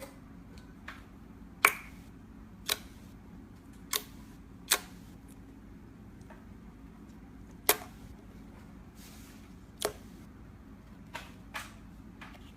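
Slime being pressed and played with, giving sharp clicking pops at irregular intervals, about one every second or two, over a faint steady hum.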